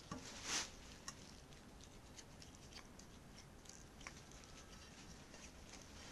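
A cat chewing on a chicken bone: faint crunches and small clicks of teeth on bone, the loudest crunch about half a second in.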